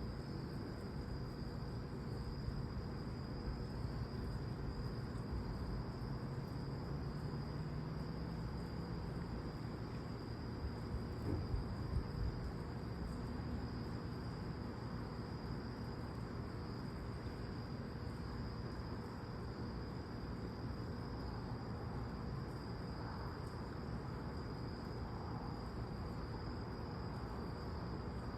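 Night chorus of crickets, a steady high trill that runs without a break, over a low background rumble.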